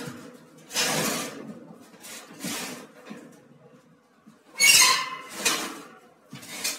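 Window air conditioner's chassis being pulled out of its sheet-metal outer cabinet: a series of scraping rubs of metal on metal, with the loudest, a sharp squeak, a little past the middle.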